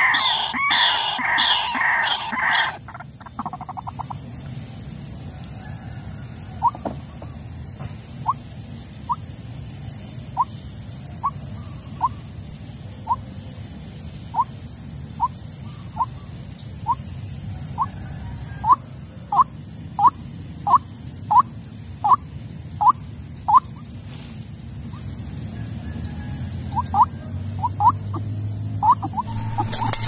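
White-breasted waterhen calling. It gives a loud, harsh, rhythmic croaking for the first couple of seconds, then a long series of short, upward-sliding single notes about one a second. The notes grow louder and quicker from just past the middle, and come again near the end. A steady high whine runs underneath.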